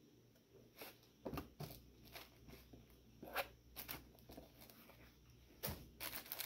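Faint, irregular rustles and soft knocks of a T-shirt and box contents being handled and set down, starting about a second in.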